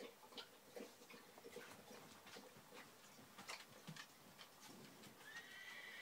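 Faint, irregular wet clicks and smacks of a young cat licking and mouthing another cat's head and neck. A faint high tone comes in near the end.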